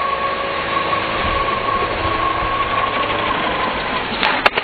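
Hirobo Sceadu Evolution 50 nitro RC helicopter's O.S. 50 SX Hyper two-stroke glow engine and rotors running with a steady high whine, then a few sharp cracks near the end as the helicopter crashes and its main blades are smashed.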